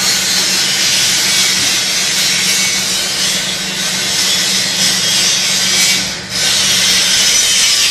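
Corn puff snack extruder line running: a loud, steady hiss of machine noise over a low hum, dipping briefly about six seconds in.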